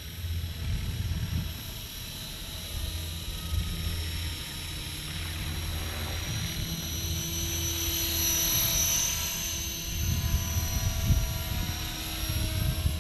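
Walkera V450D03 electric RC helicopter in flight: a steady high motor and rotor whine, shifting slightly in pitch with the throttle and swelling a little past the middle as it comes closer.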